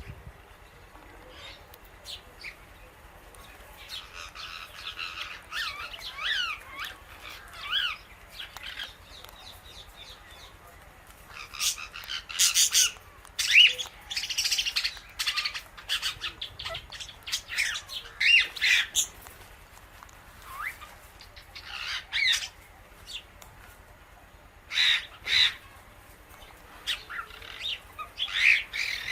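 Indian ringneck and Alexandrine parrots calling in scattered short squawks, chirps and clicks, some sliding in pitch. The calls come in clusters with short quiet gaps between them.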